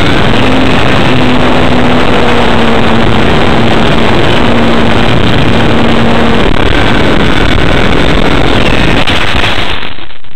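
RC model airplane's motor and propeller running with wind rush on the onboard camera's microphone, loud and distorted, with a steady whine. The noise drops away near the end as the plane comes to rest in the snow and the propeller stops.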